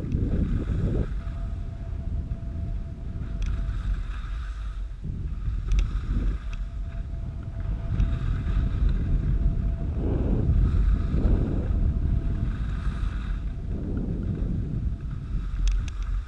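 Wind buffeting the camera's microphone during a fast downhill run on snow, a steady low rumble, with swishes of edges scraping through the snow that swell at the turns, about four times.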